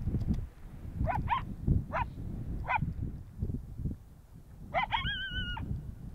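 Coyote yips: short, rising yelps at irregular intervals. Near the end two quick yips run into a brief wavering howl. A low wind rumble sits underneath.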